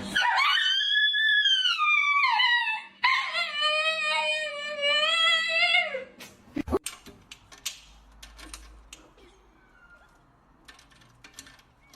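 A dog howling: two long, wavering howls over the first six seconds, the first rising then falling in pitch, the second lower and sliding down at its end. After that it is quieter, with scattered clicks and taps.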